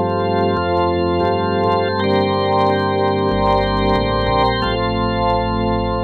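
Roland VR-09 keyboard playing an organ sound in sustained chords, the chord changing every second or so.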